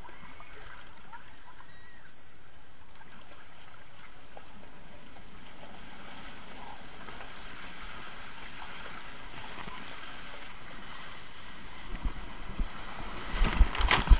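Water and a rider sliding down an enclosed water slide tube, a steady rushing hiss, with a brief high squeak about two seconds in. Near the end come loud splashes and knocks as the rider shoots out onto the open run-out lane.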